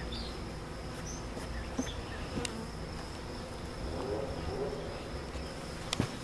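Many honey bees buzzing around an open hive, a steady hum, with a sharp click about two and a half seconds in and a louder one near the end.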